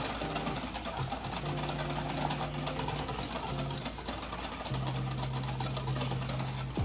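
Hand whisk beating cake batter in a glass bowl: a fast, steady clatter of the wires against the glass.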